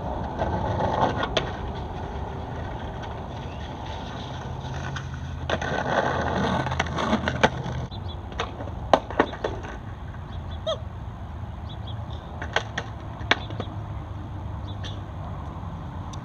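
Skateboard on concrete: wheels rolling and a gritty scrape of the board sliding along a concrete ledge about halfway through, followed by several sharp clacks of the board hitting the ground, over a steady low rumble.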